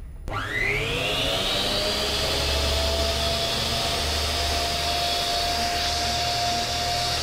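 Huspanda HCD2551 255 mm miter saw's 1600 W brushed motor starts about a quarter-second in. Its whine rises in pitch over about a second and a half, then the saw runs steady at full speed with no load on the blade.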